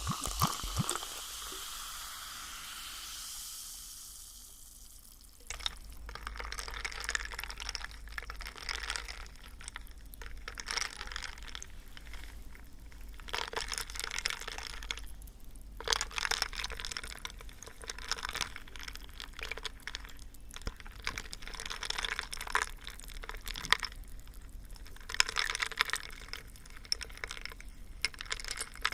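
Close-miked ASMR trigger sounds: uneven bursts of fine crackling and clicking. They start about five seconds in, after a fading sound.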